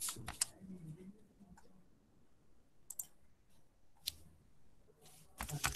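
Computer keyboard keystrokes and mouse clicks: a few scattered single clicks, then a quick run of keystrokes near the end.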